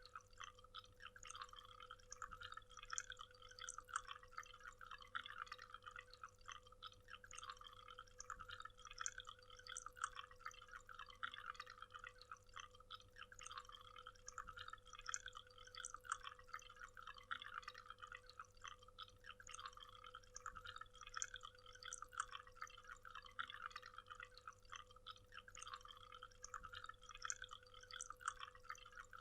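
Small waterfall with water falling and splashing in a dense, continuous patter of drips and splashes, faint and steady throughout.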